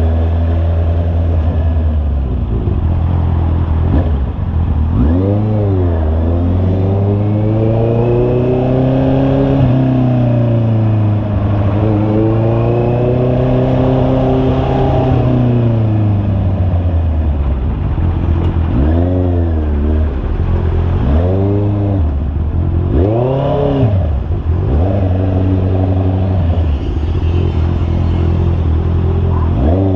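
Honda CB650R's inline-four engine on the move, its pitch climbing and falling in long swells as the throttle is opened and closed. A few short, sharp revs come in quick succession past the middle, then it settles to a steady low note.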